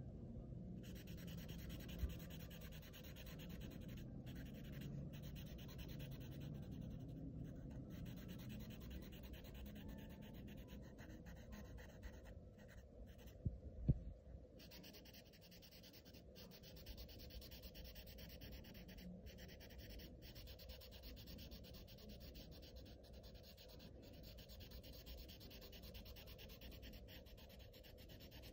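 Faint scratching and rubbing of a black marker nib on paper as an area is coloured in with short repeated strokes. It breaks off briefly around the middle, where a couple of light knocks sound, then resumes.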